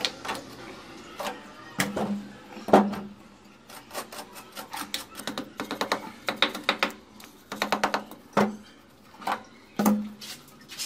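A hand tool tapping on tile and fresh cement along the edge of a stainless steel kitchen sink. The sharp taps come singly and in quick runs of several a second.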